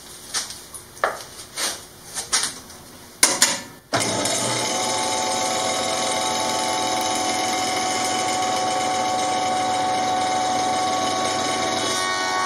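A few knocks and clicks, then about four seconds in a Grizzly G0490 8-inch jointer is switched on, its motor and cutterhead starting abruptly and running steadily.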